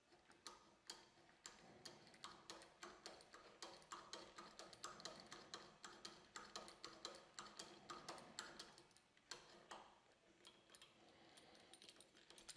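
Hand push drill boring a pilot hole for a knife hinge screw: a rapid run of sharp clicks from the drill's spiral mechanism as it is pumped, stopping about ten seconds in.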